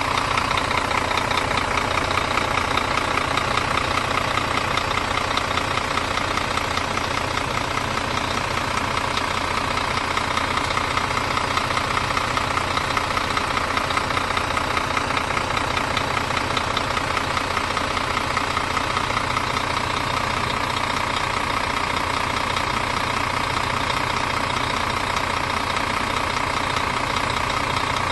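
Scania Omniexpress coach's diesel engine idling steadily, heard close up at the open engine bay, with an even rapid pulse and light diesel clatter.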